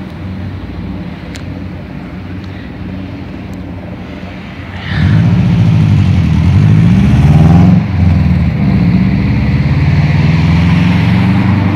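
Several U.S. Army helicopters flying over in formation: a low rotor and engine drone made of several pitches that waver and cross one another. It gets suddenly much louder about five seconds in.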